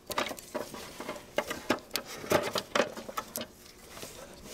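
Irregular light clicks and taps of gloved hands working a rubber timing belt onto the toothed camshaft gears and tensioner of a 1996 Volvo 850 Turbo engine.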